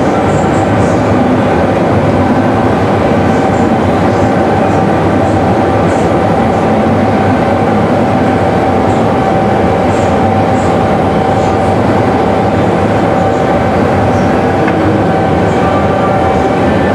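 Steady, loud mechanical noise with a constant whining tone, typical of glassworks machinery such as furnace burners and ventilation blowers, with faint light clinks.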